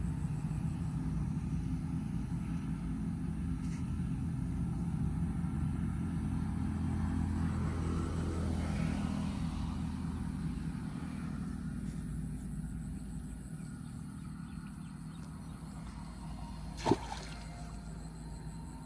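A steady low engine rumble that swells around the middle and then fades away, with a single sharp knock near the end.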